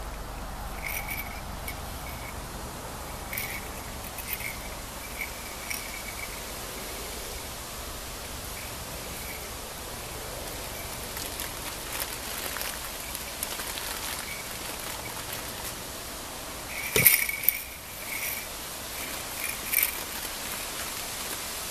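Small bells on a cat's tinsel collar jingling now and then as the cat moves, the loudest jingle a few seconds before the end, over a steady outdoor hiss.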